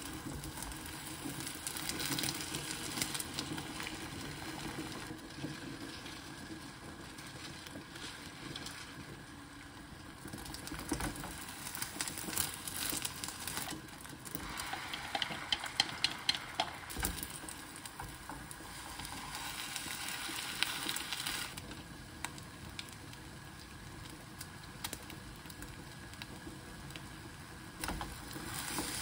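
Home cooking sounds: food sizzling in a frying pan, with utensils clattering. About halfway through there is a quick run of sharp clicks.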